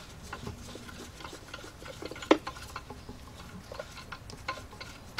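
Light, irregular metallic clicks and clinks of a wrench and socket on engine bolts as they are worked loose, with one sharper clink about two seconds in.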